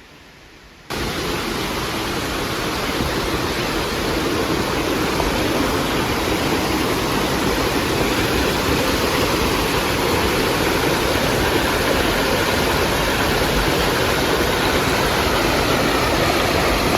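Creek water rushing: a loud, steady noise that starts abruptly about a second in and holds without a break.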